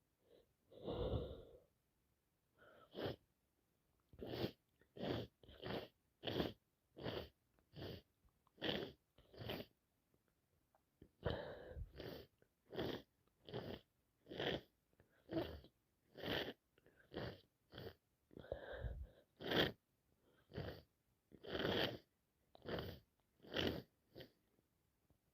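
A person sneezing over and over in a rapid fit, about thirty short sneezes coming roughly every three-quarters of a second, with one brief break near the middle; the sneezing is brought on by a cold and allergies.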